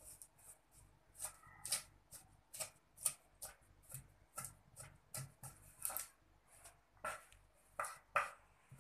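Short crisp crunches and taps of chopped lettuce being handled and pressed on a wooden cutting board, about two a second.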